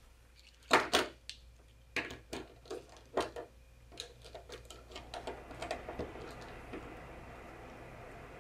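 Daniels DRP9 lens pliers clicking and clacking as they are handled over a wooden tabletop: a few separate sharp clicks, then a quicker run of small ticks from about four seconds in as the jaws are closed around the camera's lens mount.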